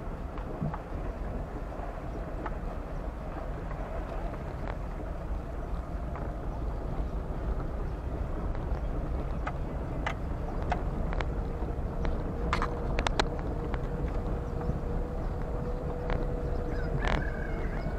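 A car being driven: a steady low rumble of engine and road noise, with scattered sharp knocks and rattles over the second half and a faint steady whine.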